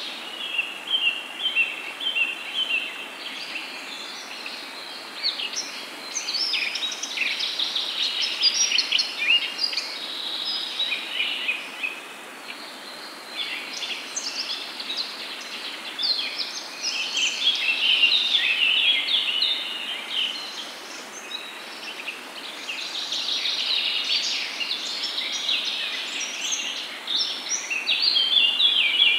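Many small birds chirping and twittering over a steady soft hiss. The chirping comes in dense waves that swell and fade every few seconds.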